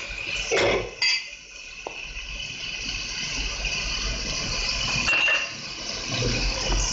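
Ground spices and tomato paste frying in hot ghee in a non-stick pan, with a steady sizzle and a few short metallic clinks.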